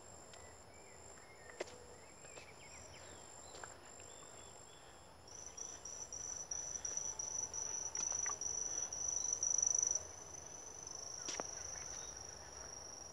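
High-pitched insects trilling in thick vegetation: a thin steady trill, then about five seconds in a louder one starts pulsing rapidly, several chirps a second and growing louder, before settling into a steady shrill buzz. A few faint bird chirps come through in the first few seconds.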